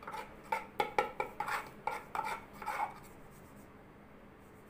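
Metal spatula scraping and clinking against the metal bowl of a wax heater while warm honey wax is scooped and rolled onto it. It is a quick run of taps and scrapes that stops about three seconds in.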